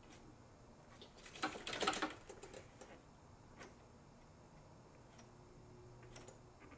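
Faint clicks and scraping of a small screwdriver working at the plastic DISA intake valve, with a louder cluster of clicks about a second and a half in and scattered light ticks after.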